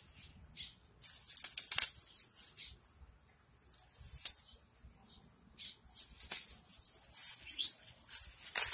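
Leaves and weed stems rustling in bursts as they are grabbed and pulled up by hand, with a few sharper crackles.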